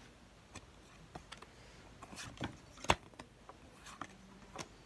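Pokémon trading cards being flipped through by hand: soft slides and light ticks of card against card, with one sharper snap about three seconds in.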